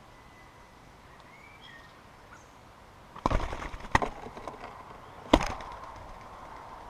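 Sharp knocks and taps on a wooden bird table right by the camera, typical of birds landing and pecking at food. The knocks come as a quick cluster about halfway through, one more shortly after, and the loudest single knock near the end. A couple of faint bird chirps come before them.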